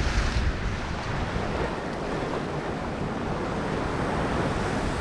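Sea swell washing and surging against the rocks below, a steady noise, with wind rumbling on the microphone.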